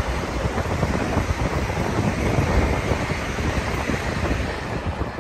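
Wind rushing over the microphone with the steady rumble and rapid clatter of train wheels on rail, heard from an open window of a moving train.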